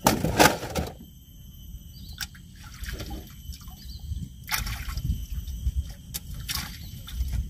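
Water splashing and sloshing: a loud splash at the start, then two shorter splashes later on.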